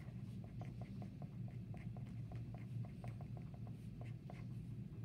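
A pen writing on paper: quick short scratching strokes, several a second, over a steady low hum.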